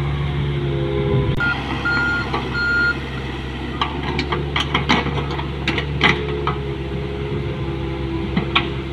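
Komatsu PC45MR mini excavator's diesel engine running steadily as the machine swings and digs. About a second and a half in, an alarm beeps three times. From about four seconds in comes a run of sharp knocks and clanks from the bucket and arm working the stony soil.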